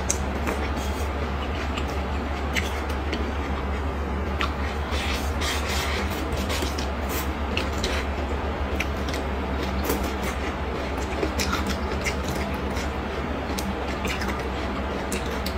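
Close-miked chewing and eating: wet mouth clicks and soft crunches, with the occasional tap of chopsticks, over a steady low hum.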